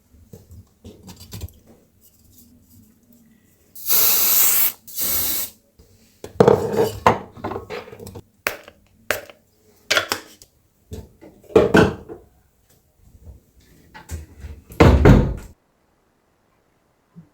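Kitchen clatter of pots, dishes and cutlery being handled, a string of separate knocks and clinks, with two loud short rushing hisses about four and five seconds in.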